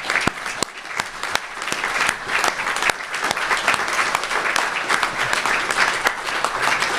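Audience applauding: a few separate claps that fill in within about two seconds to steady, even applause from many hands.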